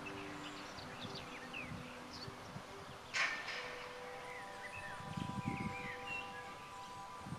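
Outdoor field ambience: insects buzzing and birds giving scattered short chirps, with a single sharp click about three seconds in.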